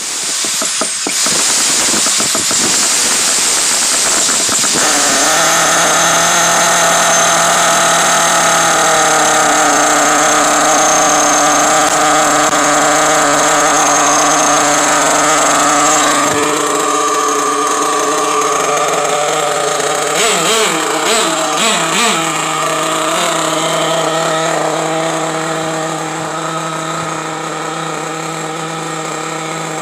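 Small nitro engine of an OFNA radio-controlled truck, just started with a drill, running steadily. Its pitch wavers up and down about twenty seconds in, and it runs a little quieter near the end.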